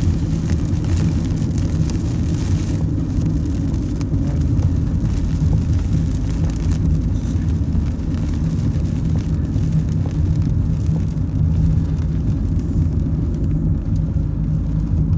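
A car driving on the highway: steady low road and engine rumble, with a higher hiss that drops away about three seconds in.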